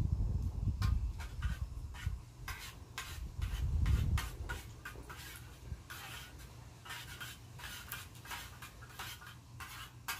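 Spoon stirring rice and liquid in a metal canteen cup, a quick run of short scrapes and clicks against the cup. A low rumble sits under the first half and fades out.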